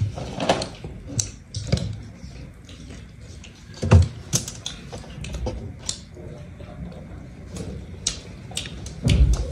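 Close-miked eating of roast chicken: chewing and mouth smacks, with many irregular sharp wet clicks as meat is pulled apart by hand, and a louder thud about four seconds in and again near the end.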